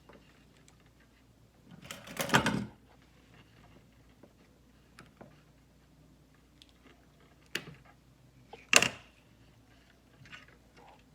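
Handling noises from bench wiring work: a short scraping rustle about two seconds in, then two sharp clicks, the second the loudest, near the end, over a faint steady hum.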